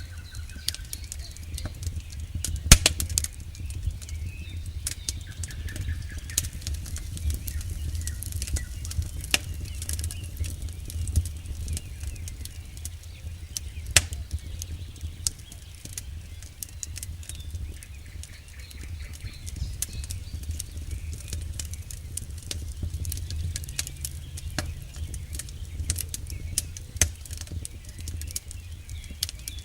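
Campfire of burning firewood crackling and popping, with scattered sharp snaps over a steady low rumble; the loudest pops come about three seconds in and again near fourteen seconds.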